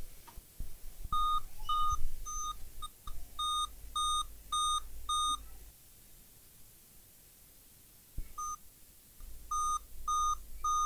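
Dell Inspiron N5010 laptop sounding its power-on beep code: a run of eight short, evenly spaced beeps on one pitch, a pause of about three seconds, then the run starting again. It is Dell's eight-beep code, the sign of a graphics failure, the laptop powering up with no picture.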